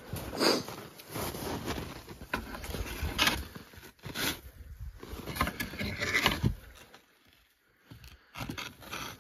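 Snow crunching and scraping as shed red deer antlers are picked up and handled, in irregular bursts that fall quiet for about a second near the end.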